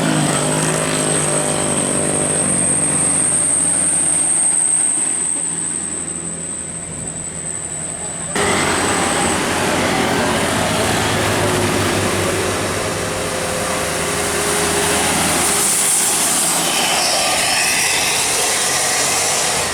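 Bus engines and road traffic: a steady engine rumble with road noise. The sound changes abruptly about eight seconds in.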